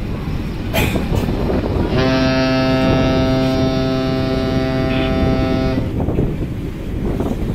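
Ferry's ship horn sounds one long blast of about four seconds, starting about two seconds in and cutting off sharply: a steady low tone with many overtones. A steady low rumble runs underneath.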